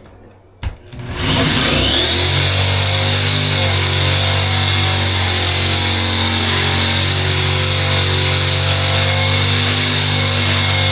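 Handheld power grinder switched on with a click about a second in, spinning up and then running steadily with a high whine as it grinds down a high hump in the floor.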